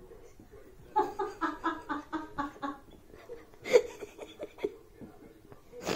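A woman laughing: a quick run of about eight "ha" pulses about a second in, then a louder burst of laughter a little before the middle, with a few shorter ones after it.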